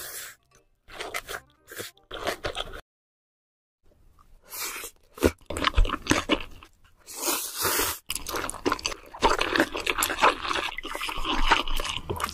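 Close-miked eating sounds of spicy noodles: crunchy bites, chewing and slurping in quick, irregular bursts, broken by a silent gap about three seconds in.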